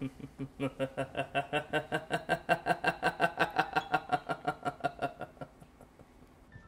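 A man laughing long and rhythmically, a steady run of 'ha' pulses about five a second that swells in the middle and dies away about five seconds in.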